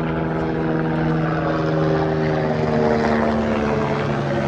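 Aircraft engine drone passing by: a steady pitched hum that drops slightly in pitch about three seconds in.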